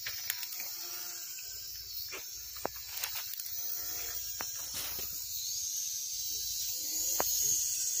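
Small toy quadcopter drone's propellers buzzing with a high whine as it flies, the pitch wavering as the motors speed up and slow down, with scattered sharp clicks.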